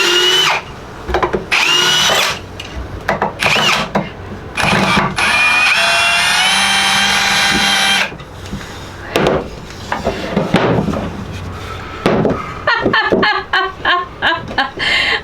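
Power drill run in several short bursts, its motor whine rising and falling in pitch as it spins up and slows. A quick rattle of clicks comes near the end.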